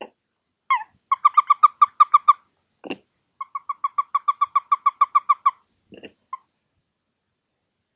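An animal's call: two fast runs of short, clear notes at about seven a second, the first lasting just over a second and the second about two seconds. A few rougher, lower single calls come before, between and after the runs.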